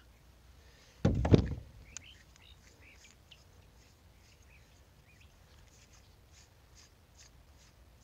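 A short, loud knock and rustle about a second in as the plastic bucket and a fitting are handled, then faint bird chirps in the background.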